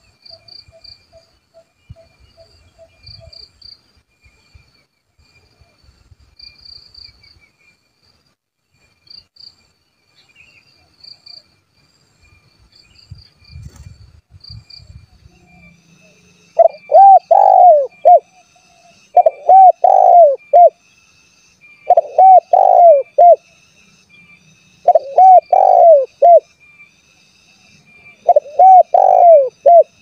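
Spotted dove (tekukur) cooing: after a quiet first half, five loud phrases start about halfway through, one every two and a half to three seconds, each a short run of several rolling coo notes. Faint high chirping sounds through the background.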